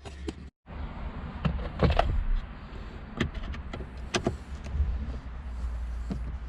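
Scattered clicks and knocks of hands and a tool working on a car's plastic glove box and dashboard trim, over a low steady rumble.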